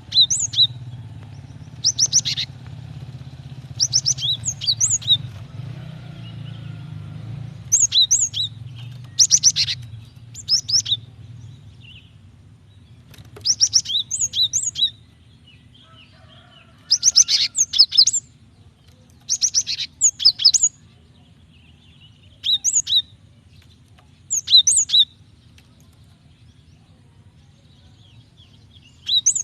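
Female cinereous tit (gelatik batu) calling: short bursts of rapid, high chirping notes, repeated every two to three seconds, the kind of call used to lure and set off males.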